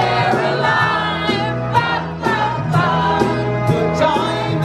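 Women singing into microphones over a keyboard band accompaniment, with a steady beat and a walking bass line.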